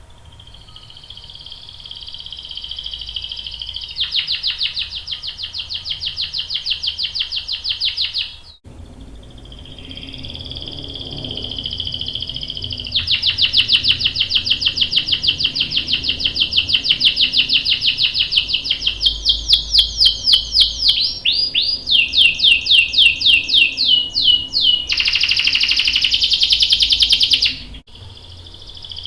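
Domestic canary singing long rolling trills: rapid strings of repeated high notes, changing speed from phrase to phrase, with a short break about a third of the way in and a buzzier, very fast roll near the end.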